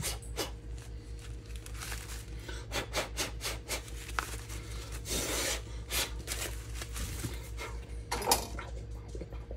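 Corn husks and silk being stripped by hand from a freshly microwaved ear of corn: a run of rustles and short crackles over a steady low hum.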